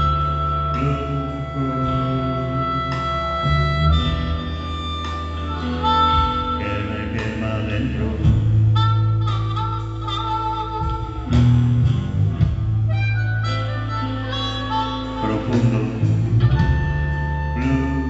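Live blues band playing an instrumental passage on electric guitars, bass and drums, with long held lead notes over a steady bass line.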